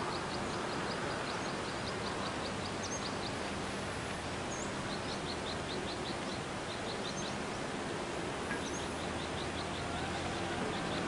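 Rural outdoor ambience: small birds chirping, one repeating a short high chirp about five times a second in runs, with other brief high calls now and then, over a steady hiss.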